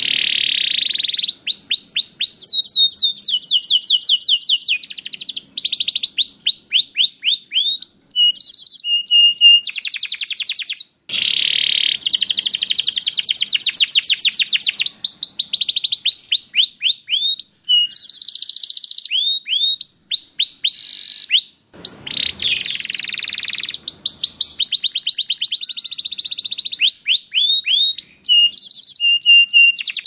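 Domestic canary singing a long, loud song of rapid trills, some very fast and rolling, others slower, with short steady whistled notes between them. The song is broken by two brief pauses.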